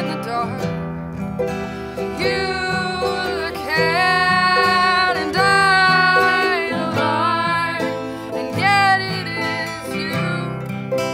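A woman singing, with long held notes, over a strummed acoustic guitar and ukulele.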